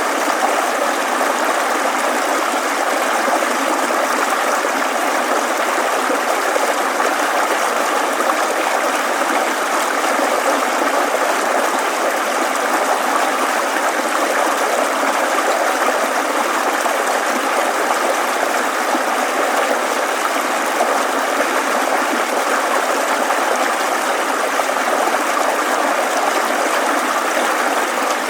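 Steady babbling of a rushing mountain stream, water running continuously over rocks.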